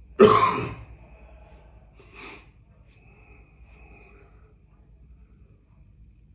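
A man's short, loud breathy vocal exhale, like a sigh or snort, just after the start, then a softer breath about two seconds in, over quiet room tone.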